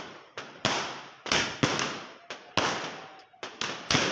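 Fireworks going off in a rapid, irregular run of sharp bangs, about two or three a second, each trailing off in a fading hiss.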